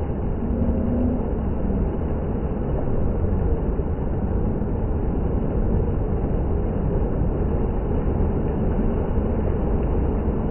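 Water fountain splashing: a steady rushing of falling water with no breaks.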